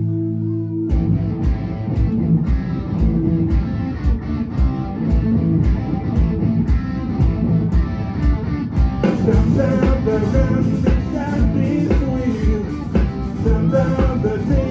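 Live rock band with electric guitar, bass and drum kit. A held chord rings first, then the full band comes in on a steady drum beat about a second in. From about nine seconds a ticking cymbal or hi-hat pattern and a wavering lead melody join.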